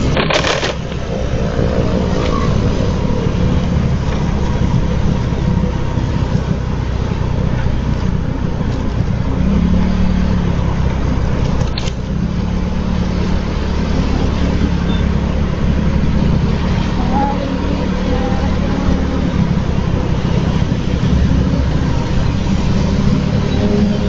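Motorcycle engine running steadily while riding, its pitch shifting a little with speed, over a constant rush of road and wind noise. A short click comes near the start and another about halfway through.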